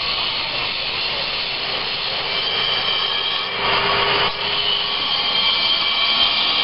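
Angle grinders grinding the edge of a stone curb: a steady high whine with the rasp of the disc on stone, louder and rougher for a moment a little past halfway.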